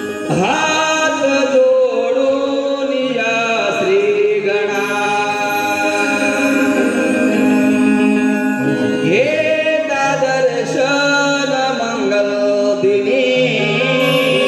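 Marathi Shakti-Tura devotional stavan sung into a microphone: a voice holding long notes with wide sweeping slides in pitch, over steady held accompaniment tones.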